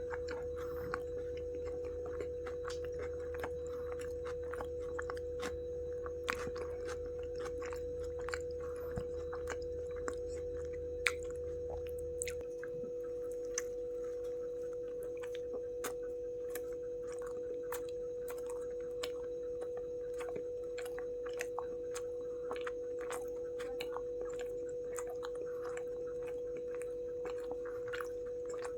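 Close-miked chewing and biting, with many small scattered mouth clicks, over a steady unchanging hum at one pitch. A low rumble underneath stops about twelve seconds in.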